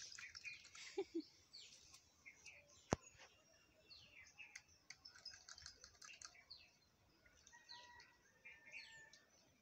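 Faint bird chirps and twitters, short and scattered, with a single sharp click about three seconds in.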